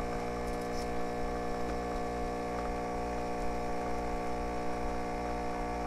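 Tassimo pod coffee machine's pump running with a steady hum as it brews coffee into a cup.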